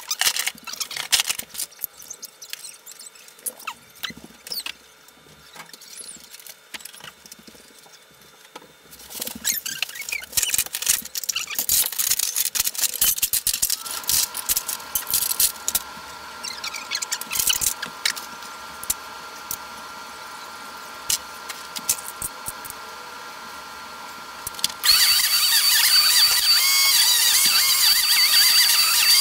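Clicks and clatter of vacuum-cleaner parts being handled, then a steady whine that turns much louder and higher-pitched about five seconds before the end.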